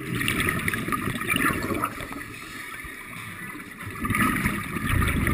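Scuba regulator exhaust bubbles rising underwater as a diver breathes out, in two bursts of bubbling: one for about the first two seconds, another starting about four seconds in.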